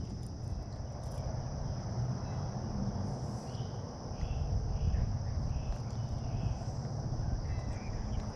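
Steady high-pitched insect chorus, like crickets, over a low rumbling noise.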